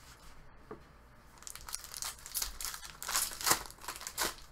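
Foil wrapper of a hockey card pack crinkling and tearing as it is opened by hand, a run of crackling rustles starting about a second and a half in and loudest toward the end.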